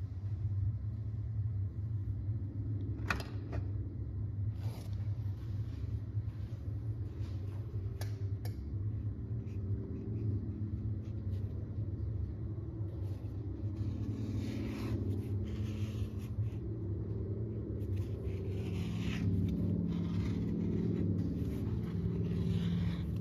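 Steady low hum of a workshop, with a few light knocks and scrapes as a long leather strap is handled and slid on a bench top.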